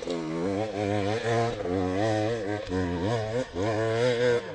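Enduro dirt bike engine running at low speed, its pitch rising and falling about once a second as the throttle is opened and closed.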